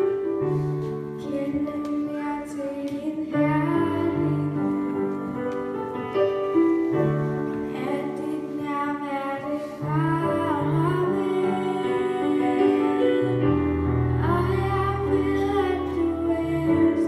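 A young girl singing a Danish hymn into a microphone over an instrumental accompaniment of held notes, with a deeper bass note entering near the end.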